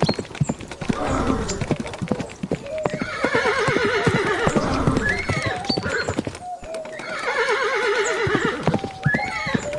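A horse whinnying twice, each call long and quavering, over the clip-clop of hooves.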